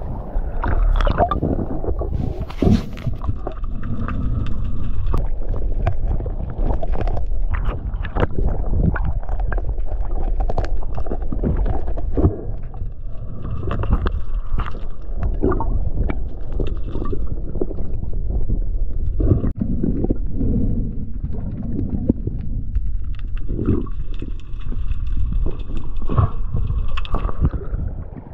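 Seawater sloshing and gurgling against a camera held at the surface as it dips in and out of the water, with irregular splashes from a swimmer kicking along.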